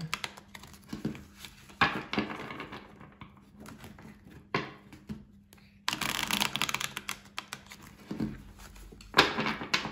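A deck of tarot cards being shuffled by hand on a wooden table, the two halves pushed into each other and the cards worked through the hands, making rapid flurries of clicking and flicking. The flurries come near the start, about six seconds in and near the end, with single snaps and quieter gaps between.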